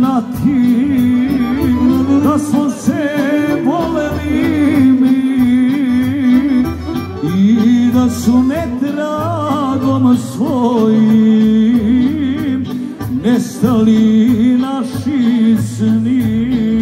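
Live Balkan folk band playing, with violins, accordions and drums, and a male singer's voice over the music.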